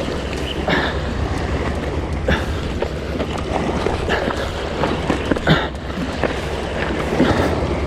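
Wind buffeting the microphone with a steady low rumble, over waves washing against the rocks, with a few short clicks scattered through.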